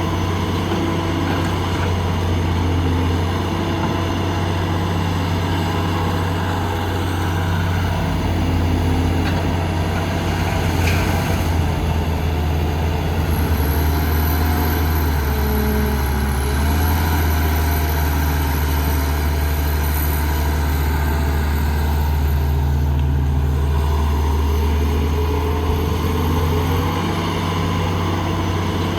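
Heavy diesel engine of construction machinery running steadily, a continuous low drone whose pitch shifts slightly now and then as the machine works.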